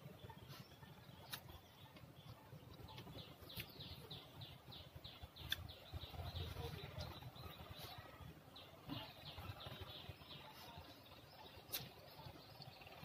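A bird chirping in a quick run of short falling notes, several a second, for about four seconds in the middle, over faint low room noise. A few sharp clicks stand out, one about a third of the way in and one near the end.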